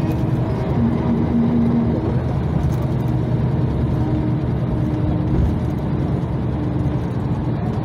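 Karosa LC735 coach's diesel engine and drivetrain running steadily at cruising speed, heard from inside the passenger cabin together with road noise.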